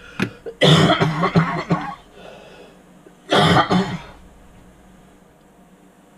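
A man coughing and clearing his throat: a run of several coughs about half a second in, then one more cough about three seconds in.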